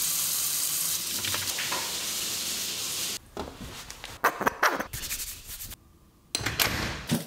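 Tap water running in a steady stream into a kitchen sink for about three seconds. This is followed by short, irregular rubbing and clicking sounds of hands handling a cloth towel and a metal tool at a door handle.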